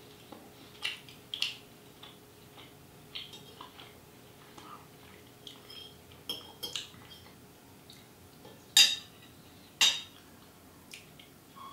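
Metal fork and knife clinking and scraping against a ceramic plate as food is cut and picked up: a scattering of short, sharp clicks, the two loudest about a second apart near the end.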